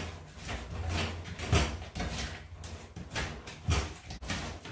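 Raw sardines being rubbed and turned by hand in a steel bowl while being washed with flour, salt and vinegar: irregular wet handling sounds and light knocks against the metal.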